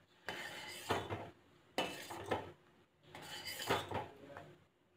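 Steel spoon scraping and clinking against a stainless steel saucepan while stirring milk as it comes to the boil, in three short bouts with brief pauses between.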